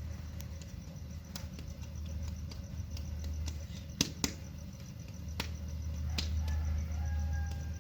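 Scattered sharp clicks and taps over a steady low rumble, with two louder clicks close together about halfway through.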